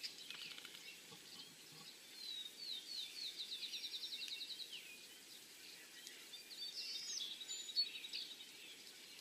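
Songbirds singing: a fast trill of repeated high notes from about two and a half to four and a half seconds in, then scattered chirps and another short trill near the end, over faint outdoor background noise.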